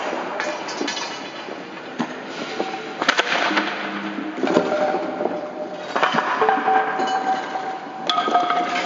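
Scattered sharp knocks and clinks, several of them leaving short ringing tones, echoing in a large hangar hall; the ringing tones grow more frequent after about six seconds.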